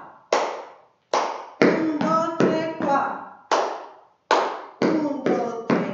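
Hand claps and boot stamps on a tiled floor in a zapateado dance step: about eleven sharp strikes in an uneven rhythm, each ringing briefly in the room.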